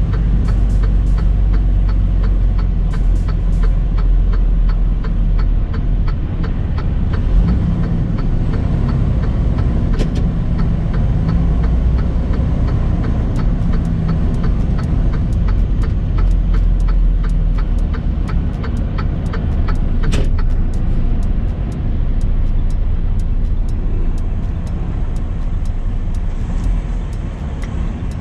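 Semi truck driving at highway speed: a steady low engine and road rumble, with faint regular ticking and a sharper click about ten seconds in and again about twenty seconds in.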